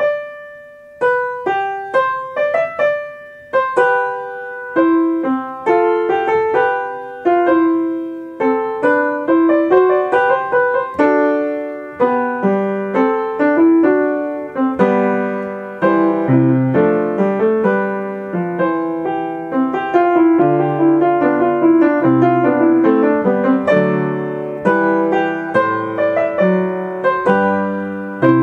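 Solo piano playing a slow piece. Single notes ring out and fade at first, and fuller chords with a bass line come in about halfway through.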